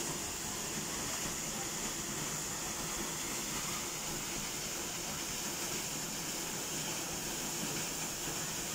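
Tall, narrow waterfall plunging into a rock pool: a steady hiss of falling water and spray, strongest in the high register and even throughout.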